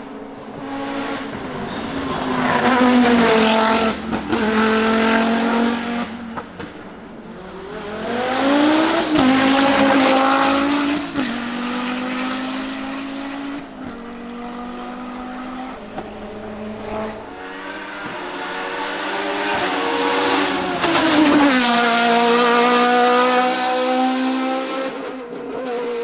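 Hillclimb race cars driven flat out up the road one after another. Each engine note climbs and drops sharply at every gear change, with three loud surges as cars go past.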